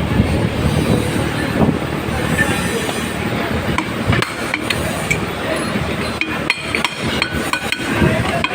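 Light knocks and metallic clicks of hand tools working on ceiling-fan hardware, with a run of quick taps in the second half, over a steady rumbling background noise.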